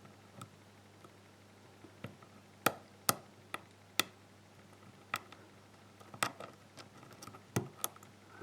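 A deep hook pick working the pin stack of a GeGe euro-cylinder lock with security pins: sharp, irregular metallic clicks, about ten of them starting a couple of seconds in, as pins are lifted and set or drop back.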